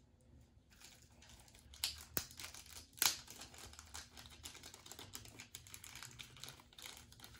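Small plastic packaging crinkling with irregular light clicks as tiny doll accessories are handled, with a few sharper clicks about two and three seconds in.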